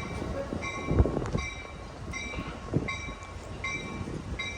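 Train bell ringing in steady strokes, about two a second, over the low rumble of the train rolling in, with a couple of low thuds from the cars.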